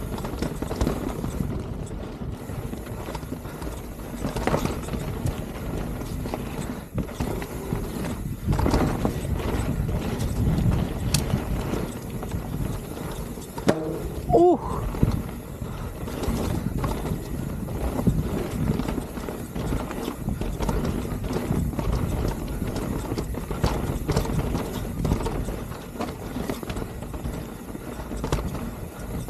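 A mountain bike descending rough trail at speed: tyres rolling and the bike rattling and knocking over rocks and roots in a steady run of clatter. A short pitched squeal cuts through about halfway.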